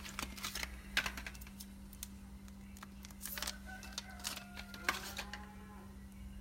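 Light, irregular clicks and taps of small tools and phone parts being handled on a workbench, with a few short, faint bird calls about halfway through over a steady low hum.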